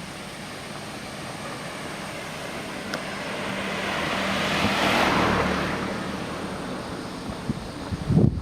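A motor vehicle passing by: its noise swells to a peak about five seconds in and fades away. A short low rumble comes near the end.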